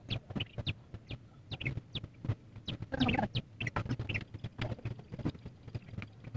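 Short, irregular clicking calls from an animal, the loudest about three seconds in.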